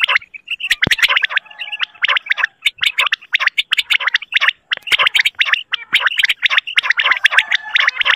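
Recorded quail calls played as a hunting lure: a fast, chattering stream of short, sharp notes with a few brief breaks.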